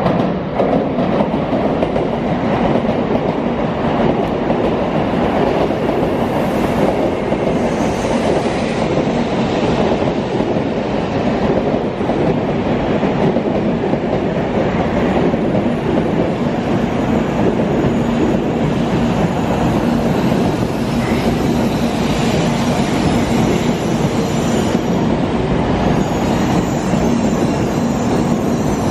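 N700A Shinkansen train running into the station past the platform. A steady, loud rumble of wheels and running gear carries on as the cars go by, with a low hum that grows clearer toward the end.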